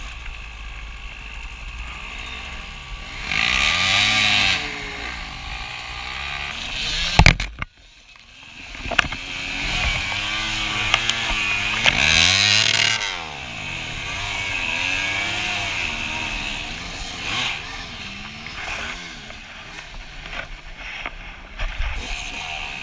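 Dirt bike engine revving up and down while riding, its pitch rising and falling with throttle and gear changes. About seven seconds in there is a sharp loud knock, the sound briefly cuts out, and then the engine picks up again.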